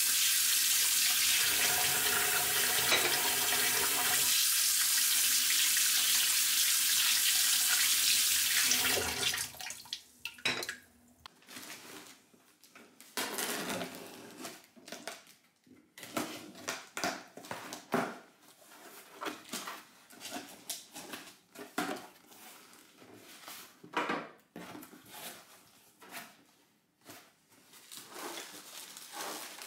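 Tap water running into a stainless steel sink while a soap dispenser is rinsed under the stream. About nine seconds in the water cuts off and a knife scrapes along the packing tape of a cardboard box; the flaps are then opened and handled in a string of irregular scrapes, taps and rustles.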